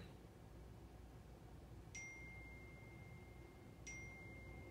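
Two faint single-note chimes from a 2018 iPad Pro 12.9, about two seconds apart, each ringing on and fading slowly: text message alert tones announcing two incoming messages.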